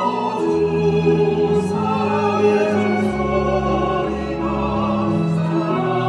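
Small mixed vocal ensemble singing a hymn in harmony, accompanied by a string ensemble of violins, with a sustained low bass line underneath.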